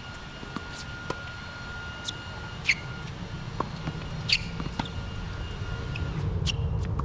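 Tennis rally on a hard court: a tennis ball being struck by rackets and bouncing, heard as short sharp pops. The two loudest are about a second and a half apart, each with a brief ringing of the strings. A steady low rumble lies underneath and grows a little louder near the end.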